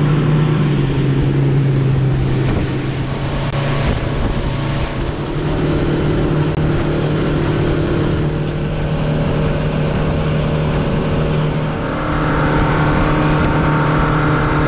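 Outboard motor of a small boat running steadily under way, a constant engine drone with a slight dip in the middle and picking up again near the end.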